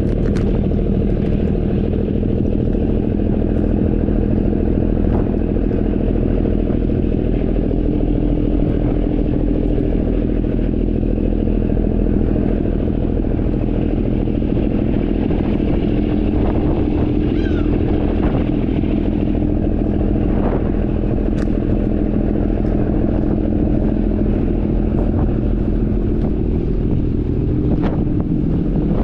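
Tour boat's engine running steadily, a constant low hum with an even pitch.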